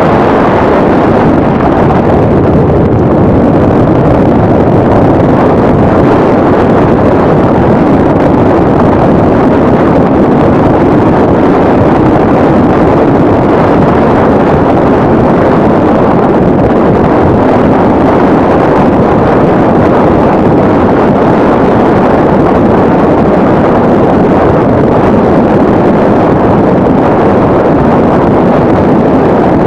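Loud, steady rush of wind and road noise inside a moving Chevrolet car driving at speed.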